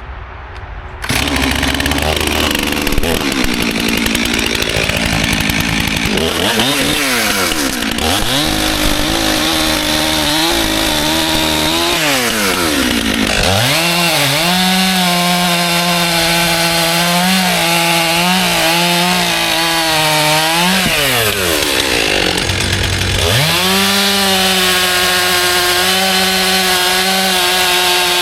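Stihl MS400 two-stroke chainsaw running hard through log cuts, starting about a second in. Its engine pitch rises and falls repeatedly, holding steady for long stretches and dropping briefly about two-thirds of the way through before picking up again.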